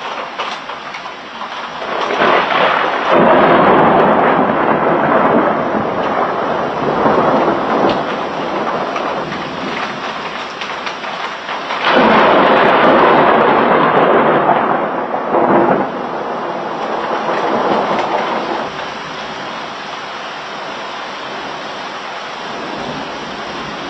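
Thunderstorm: two long rolls of thunder over steady rain. The first starts about two seconds in, the second, with a sharper onset, about halfway through; each rumbles on for several seconds before easing back to the rain.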